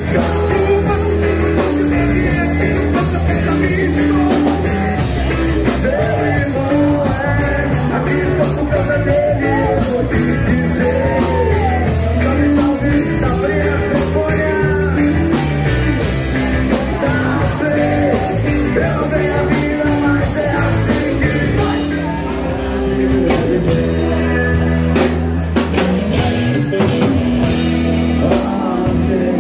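Live rock band playing a song: a man singing lead into a microphone over electric bass, acoustic and electric guitars and a drum kit.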